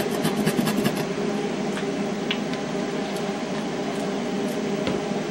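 Steady hum of a kitchen exhaust fan running. A quick run of small clicks or taps comes in the first second, and a few single ticks follow.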